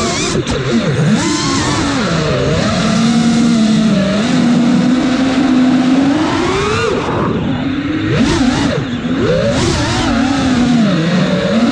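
The four T-Motor F40 Pro4 1950kv brushless motors of a 5-inch FPV freestyle quadcopter, spinning Gemfan 51466 propellers, heard through the onboard camera's microphone. Their buzzing whine keeps rising and falling in pitch as the throttle changes through the manoeuvres.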